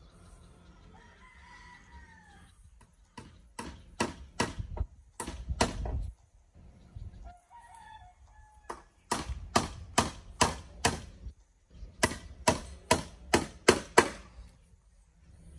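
A rooster crows once, faintly, about a second in. Then come three runs of sharp, quick blows, six to eight in each run at a few per second, with a short pitched call between the first and second runs.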